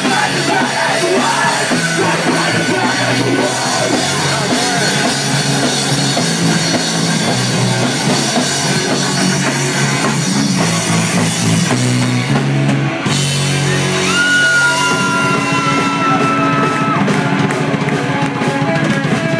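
A live rock band playing loud with a drum kit. About two-thirds of the way through, a high note slides up and is held for about three seconds.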